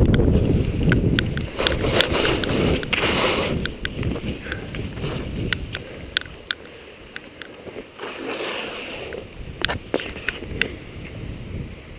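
Skis sliding and turning through snow, with wind rumbling on the action-camera microphone. The rumble is loudest over the first few seconds and then eases, and sharp clicks and ticks come throughout.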